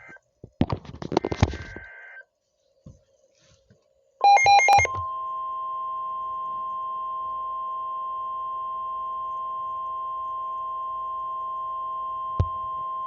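Emergency Alert System broadcast: short bursts of buzzy digital header tones, then a steady single-pitch warning tone (the 1050 Hz NOAA Weather Radio alert tone) held for about eight seconds. The tone cuts off sharply near the end.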